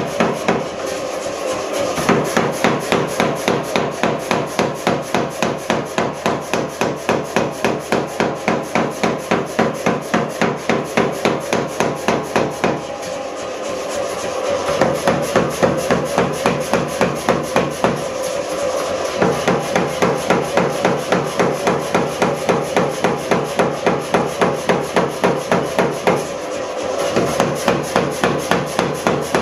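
Power hammer rapidly pounding a red-hot steel bar held in tongs, an even run of blows several times a second, easing off briefly a few times.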